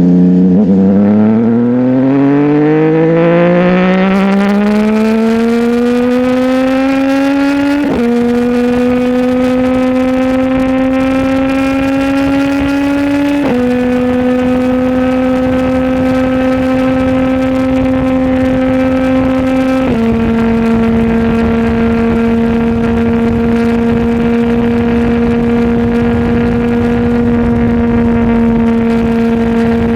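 CFMOTO 675 inline-triple engine breathing through a titanium full-system exhaust, accelerating hard from low revs. It upshifts three times, about 8, 13 and 20 seconds in, then holds a steady cruise.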